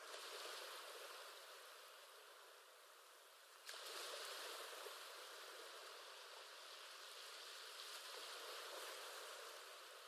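Faint ocean waves: a hissing wash that swells at the start and again suddenly about four seconds in, each time slowly easing off.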